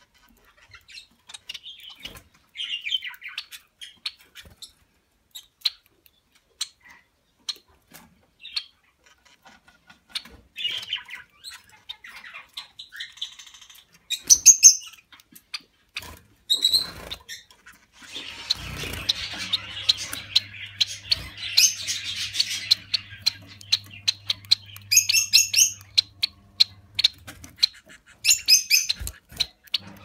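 Caged society finches (Bengalese finches) calling with short high chirps, among many sharp clicks. For about nine seconds in the second half there is a dense, noisy stretch with a steady low hum beneath it.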